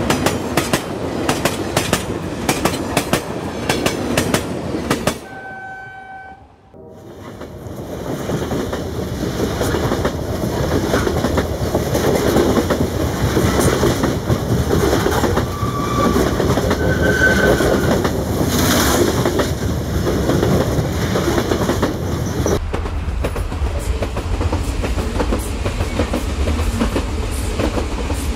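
Battery-powered plastic toy trains running on plastic track, the wheels clicking rapidly over the rail joints, with a brief horn tone about five seconds in. The running sound changes abruptly twice as the shots cut.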